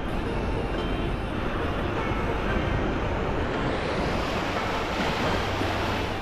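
Wind rumbling on the microphone over small waves washing up a sandy shore. The hiss of the wash grows stronger about halfway through.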